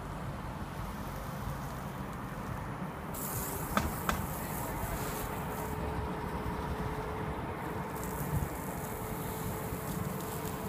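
Garden hose spray hissing as water is sprayed over a car, over a steady low rumble. The hiss comes in strongly about three seconds in and again near the end, and two sharp clicks come about four seconds in.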